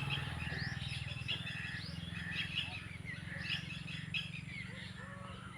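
Small birds chirping and twittering in quick, repeated short calls, with a steady low hum underneath.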